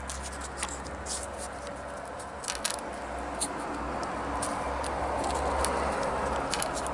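Foil wrapper of a tube of Polo mints crinkling in short scattered clicks as fingers push out the crumbling mints, over a steady low background hum.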